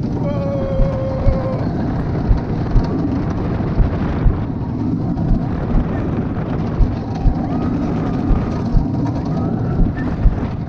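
Wooden roller coaster train running along its wooden track at speed: a steady low rumble and clatter broken by repeated low thuds, about two a second.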